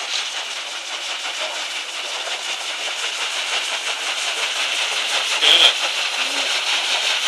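Paddle steamer Kingswear Castle passing close by: the steady churning of its paddle wheels and the hiss of its steam machinery, growing louder as it nears. A brief louder burst comes about five and a half seconds in.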